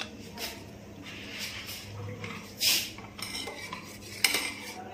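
Steel spoon scraping and clinking, first against a ceramic bowl as the custard mixture is scraped out, then stirring milk in a steel saucepan. It comes as a series of short scrapes and clinks, the loudest a longer scrape about two and a half seconds in and a sharp clink a little after four seconds.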